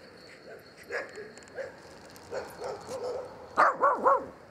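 A dog yelping in short, high, pitched yips: a few faint ones, then three loud ones in quick succession near the end.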